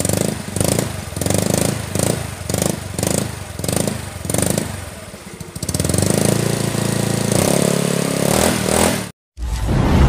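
Yamaha Mio Sporty scooter's single-cylinder four-stroke engine through a Chicken Pipe Organ Sport V3 aftermarket exhaust, the throttle blipped about eight times in quick succession. It is then held at a steady higher rev that steps up near the end and cuts off suddenly, with music starting right after.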